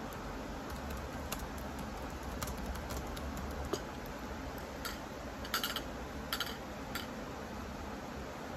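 Scattered clicks of a computer keyboard and mouse, about ten in all, with a quick little run of them a little past the middle, over a steady low hiss.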